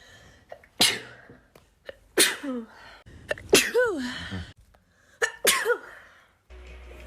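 A person sneezing four times in a row, each sneeze sudden and loud, about a second and a half apart, with a short intake of breath before each. The last two trail off in a falling voiced sound.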